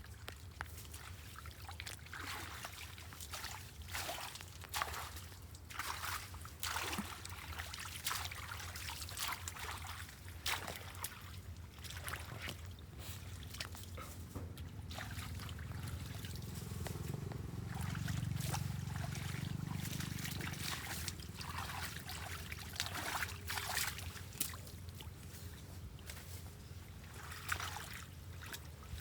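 Floodwater trickling and splashing in irregular bursts over a steady low hum, with a louder low rumble swelling up and fading away in the middle.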